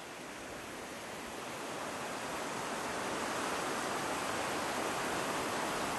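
Fast river water rushing over rocks, a steady noise that grows gradually louder over the first few seconds and then holds.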